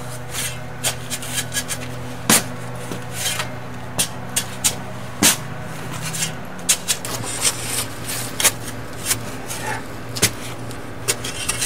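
Steel shovel blade digging into packed soil and tree roots: an irregular string of sharp chops, knocks and scrapes, heard over a steady low hum.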